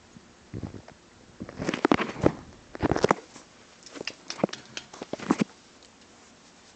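Irregular clicks, knocks and rustles, several close together, stopping about five and a half seconds in: handling and contact noise from a hand-held camera and hand moving right up against a cat in a small cage.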